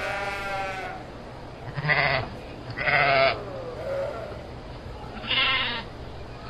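Sheep bleating: about five wavering bleats one after another, the loudest about two and three seconds in.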